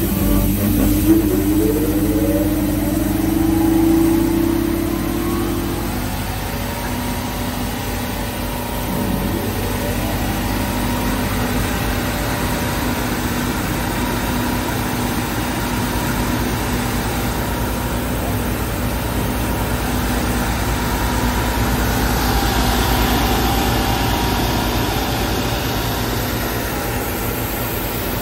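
Stemac LCRT 900 wide-belt sander running as material is fed through: a steady machine drone with a held hum. A rising whine comes in the first couple of seconds and another about nine seconds in.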